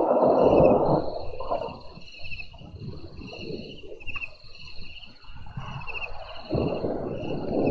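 Thunder rumbling, loud in the first second and swelling again near the end. Under it runs a constant chirping of high trills at two pitches.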